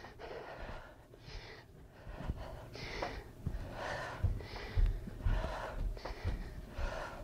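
A woman's breathing from exertion during standing oblique crunches: a quick, noisy breath roughly every second in time with the crunches, with a few low thumps about halfway through.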